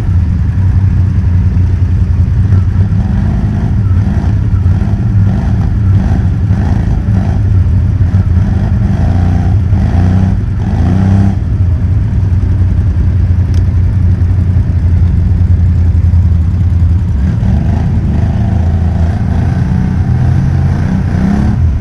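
ATV engine running close by for the whole stretch, its pitch rising and falling with the throttle.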